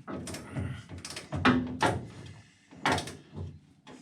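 A handful of sharp knocks and clatters, the loudest about a second and a half in, from wrenches on the nuts of a VW T3 steering rack's mounting bolts as they are fastened.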